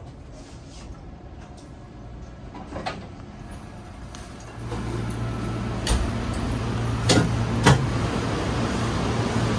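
Quiet inside a stopped train carriage, then, about halfway through, the louder noise of a station platform: a steady low hum from standing trains, with several sharp clicks and knocks.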